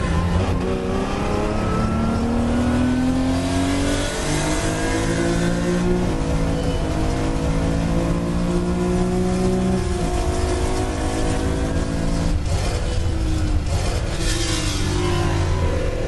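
Early Porsche 911's air-cooled flat-six running hard under race acceleration, heard from inside the car: its pitch climbs through each gear and drops at the upshifts, about six, ten and twelve seconds in.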